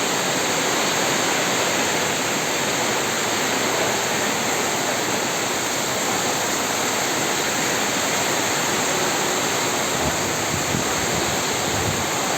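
Heavy rain pouring down in strong storm wind: a steady, dense hiss of rain and wind with no letup.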